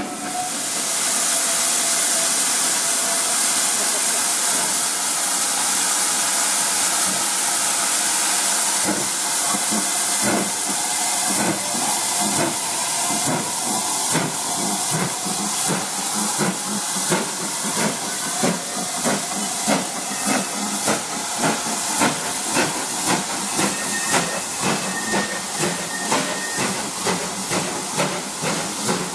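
Steam locomotive hissing loudly with steam. After about nine seconds it starts exhaust chuffs that gradually quicken as it gets under way.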